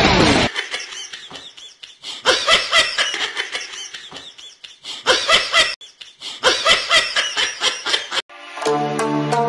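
Laughter in three bursts of quick, pulsing laughs with short pauses between them. Plucked-string music takes over near the end.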